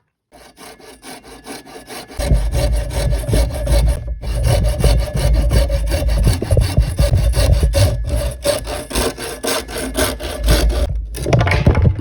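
A hand saw cutting through bamboo in quick back-and-forth strokes. It starts softly and grows louder about two seconds in, pausing briefly a few times.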